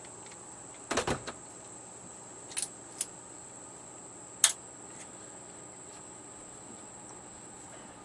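Clicks and knocks of tools and parts being handled while unscrewing a TV power board: a cluster of knocks about a second in, two light clicks a little later, and one sharp click about four and a half seconds in, over a faint steady high-pitched whine.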